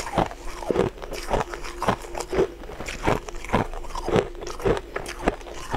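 Close-miked crunching of frozen shaved ice being chewed, about two crunches a second.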